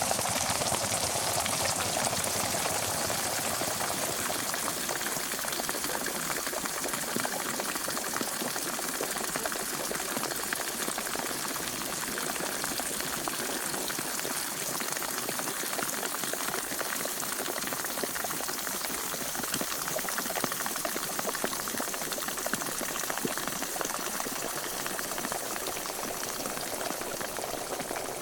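Pot of water at a rolling boil: steady bubbling and popping with fine crackling ticks throughout.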